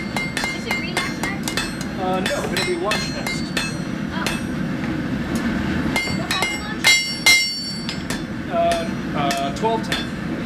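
Blacksmith's hammer blows on hot steel over an anvil, struck again and again in an irregular rhythm of about two to three a second, each with a short metallic ring. Two louder blows land about seven seconds in.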